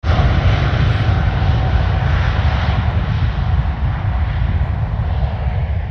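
Airbus A350's Rolls-Royce Trent XWB jet engines at takeoff thrust during the takeoff roll: a loud, steady jet roar with a deep rumble and a hiss, its upper part easing off near the end as the aircraft moves away.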